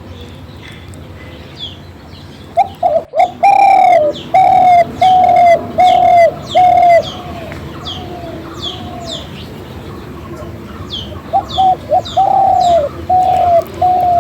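Birds calling in a banyan tree: one bird gives two runs of loud, even, low coo-like notes, about one and a half a second. Other birds make short high chirps that fall in pitch.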